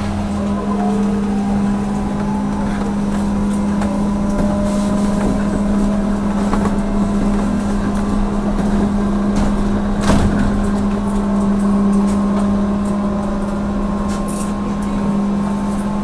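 Trolleybus running along the road, heard from inside: a steady low hum under an electric motor whine that rises and falls in pitch as the trolleybus changes speed, with a single sharp knock about ten seconds in.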